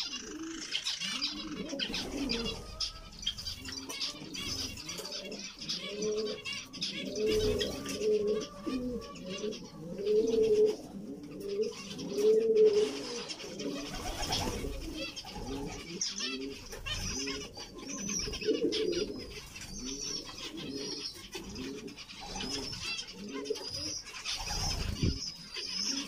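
Small aviary birds calling continuously: high chirping and twittering from zebra finches over a run of repeated low cooing notes.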